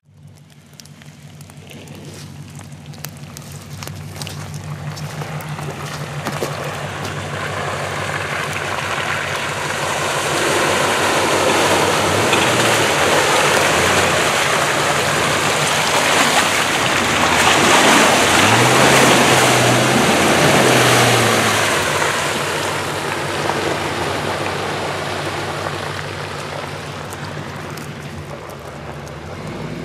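Jeep Grand Cherokee engine pulling through a deep muddy track, with the tyres churning and slopping through mud and water. The sound builds as it comes closer and is loudest about two-thirds of the way through. There the engine revs up, holds and drops back twice, and then the sound fades.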